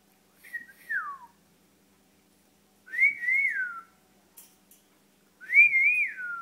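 Three short whistled phrases, each held around one high pitch with a little wavering, then gliding down at the end; the first is the shortest and drops furthest.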